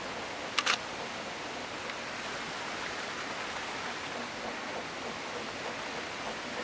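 Distant narrow-gauge steam locomotive working a train uphill, heard as a steady rushing hiss with no distinct beats. A sharp double click comes about half a second in.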